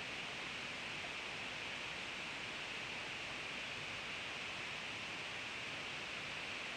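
Steady, even hiss with no distinct events: room tone.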